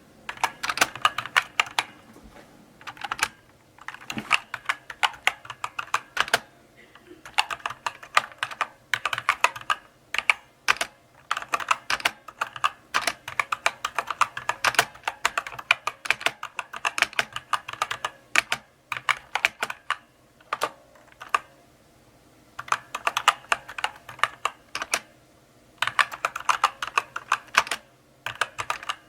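Typing on a mechanical keyboard: runs of sharp key clicks in bursts of a few seconds, with short pauses between them.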